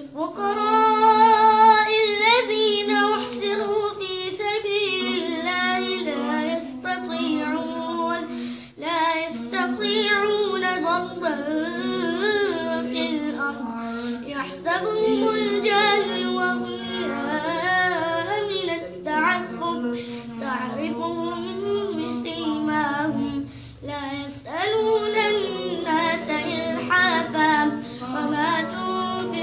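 A boy's voice reciting the Quran in melodic tajweed style, drawing out long wavering notes in sustained phrases. Short pauses for breath come about nine seconds in and again near the end.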